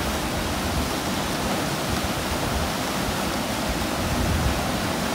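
Steady rush of whitewater from a river's standing wave churning through the rapid.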